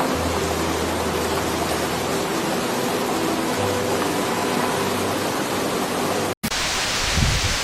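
Steady, loud rush of heavy rain and flowing floodwater. About six seconds in it cuts out for a moment and comes back hissier, like rain pouring down.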